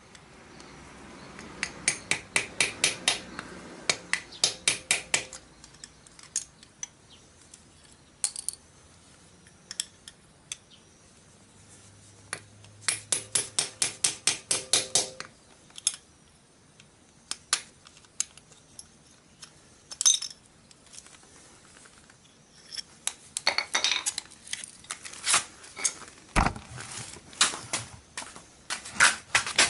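Small hammer tapping on metal at the exhaust port of a Honda CB750's cylinder head, in quick runs of light blows, several a second, with single clinks between the runs.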